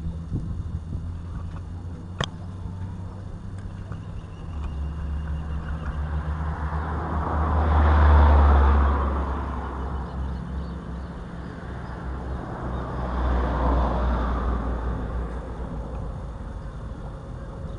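Vehicles passing by, engine and tyre noise swelling and fading twice, loudest about eight seconds in and again, more weakly, around fourteen seconds. A single sharp click about two seconds in.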